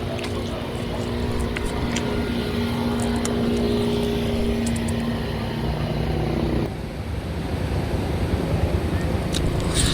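A steady motor hum over a low rumble, cutting off abruptly about two-thirds of the way through, with a few sharp clicks near the end.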